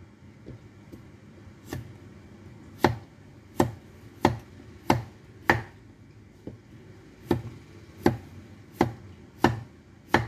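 Chinese cleaver chopping Japanese cucumber on a wooden chopping board: sharp knocks of the blade striking the board, a few light ones at first, then a steady run of about one and a half a second, with a brief pause around the middle.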